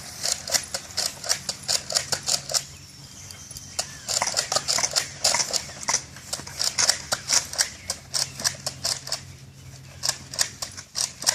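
Rapid, irregular sharp clicks and crunches, several a second, coming in bursts with two short lulls.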